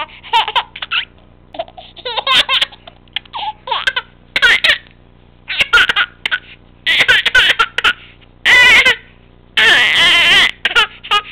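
Baby laughing in a run of short bursts, with the longest and loudest laughs about nine to ten seconds in.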